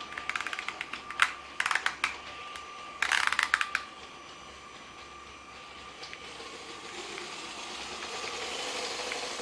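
A LEGO City 60337 Express Passenger Train running on plastic track: its electric train motor gives a steady whine, with three bursts of rapid clicking and clattering in the first few seconds. The running noise grows louder toward the end.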